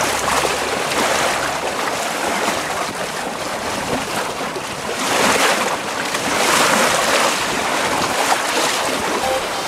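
Water rushing and splashing along the hull of an Astus 20.2S trimaran under sail, with wind buffeting the microphone. The rush swells with the waves, loudest about five and again about six and a half seconds in.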